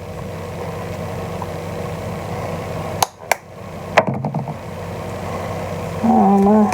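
Steady low motor hum in a kitchen, with a few sharp clicks and knocks of kitchenware about three and four seconds in, and a short vocal sound near the end.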